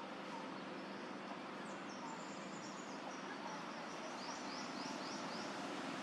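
Steady outdoor background noise with faint calls of small birds: scattered soft chirps, a high twittering phrase about two seconds in, and a run of five quick rising high notes about four seconds in.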